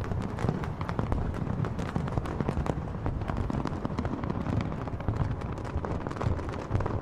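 Aerial fireworks display: a dense, continuous run of bangs and crackles over a low rumble.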